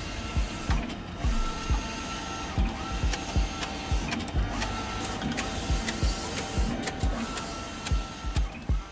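Mimaki JV100 wide-format eco-solvent printer running a print job, its carriage sweeping back and forth over the vinyl with a high motor whine that comes and goes with each pass. Background music with a steady beat plays under it.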